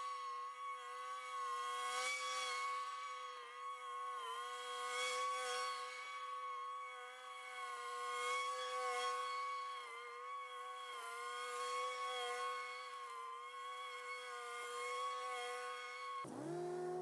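Stand-on commercial lawn mower running at steady high throttle while mowing, a constant engine drone. Its pitch dips briefly a few times, around four seconds in and again around ten to eleven seconds, as the engine takes load.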